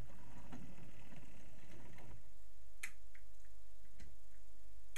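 OO-scale model train running along its track: small ticks and clicks from the wheels over the rails with a low rumble, which drops away about two seconds in, leaving a faint steady whine and a few sharp clicks over a constant low hum.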